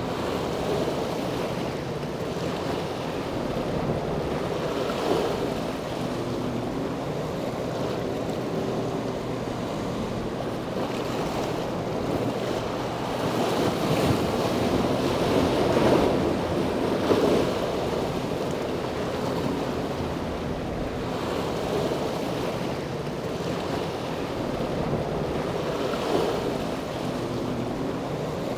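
Wind blowing on an outdoor microphone over washing water, with a steady low engine drone underneath; the wind gusts louder about halfway through.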